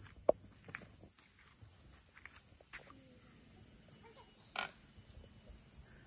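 Tropical forest insects droning steadily in a high pitch, with scattered light clicks and knocks. One sharp click comes about a third of a second in, and a brief scraping rustle a little past halfway.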